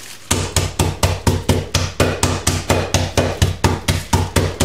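A drinking glass pounding hazelnuts in a plastic bag against a stone countertop, sharp, regular blows at about four a second that crack the nuts into small pieces.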